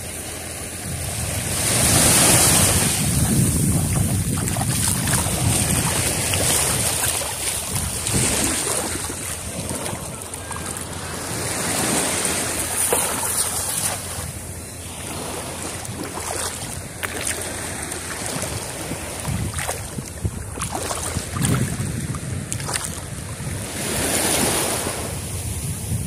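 Wind buffeting the microphone over small sea waves washing in the shallows, rising and falling in slow surges, with a few short splashes in the water.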